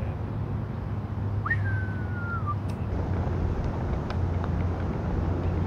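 A single whistled note about a second and a half in, jumping up sharply and then sliding slowly down for about a second, over a steady low rumble.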